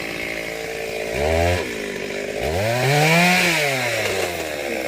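Two-stroke chainsaw idling, revved briefly about a second in, then throttled up again, its pitch rising and then falling back toward idle.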